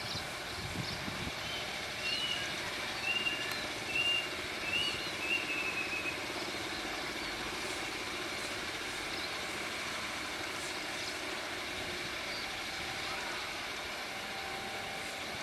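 Distant diesel locomotive engine running steadily as the train approaches, heard as a low even rumble. Birds chirp several times in the first half.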